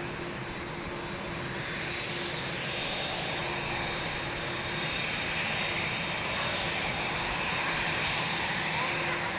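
Japan Airlines Boeing 787's GEnx turbofan engines running at low taxi power as the airliner turns on the runway: a steady low hum under a whining hiss that slowly grows louder.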